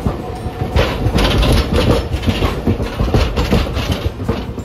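A Hiroden streetcar rumbling over the station trackwork, its wheels knocking and clattering across the rail joints and points in a quick, uneven run.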